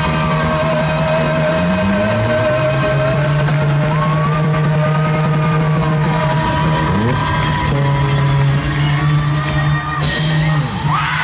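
A live rock band playing loudly in a hall, heard through a phone microphone: long sustained guitar notes with sliding pitches over a steady low note, and some singing. A bright, noisy burst comes about ten seconds in.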